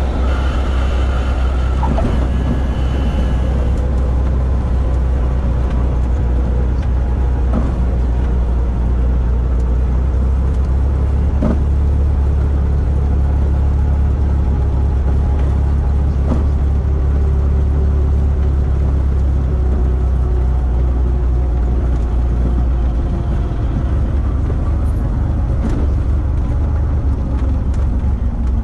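Cessna 172 rolling out on a concrete runway just after landing: the engine and propeller idle with a steady low hum, mixed with the rumble of the wheels on the runway. A faint tone slowly drops in pitch over the second half as the plane slows.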